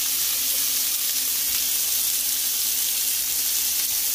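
Chopped onions and peppers frying in hot bacon fat in a pan: a steady sizzle.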